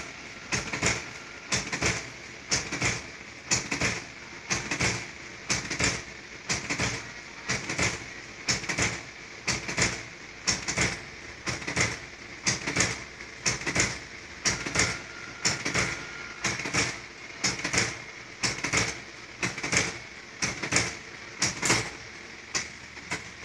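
Riso EZ/RZ digital duplicator pumping ink into its print drum: a regular mechanical clacking, about one to two clacks a second.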